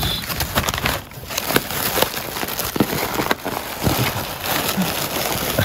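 Crumpled newspaper and plastic air-pillow packing rustling and crinkling as hands rummage through a cardboard box, a dense run of irregular crackles.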